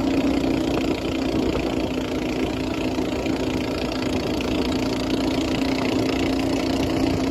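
A boat's engine running steadily at constant speed, a continuous hum with a steady rushing noise over it.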